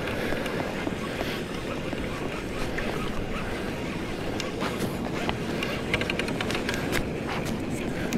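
Wind buffeting the microphone over choppy sea water lapping around a kayak, with a scatter of light clicks and knocks in the second half.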